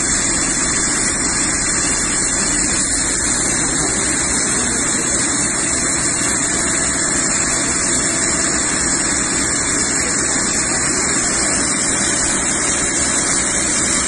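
Steady loud hiss and rush of a fire hose spraying water onto a burning speedboat, with an engine running underneath.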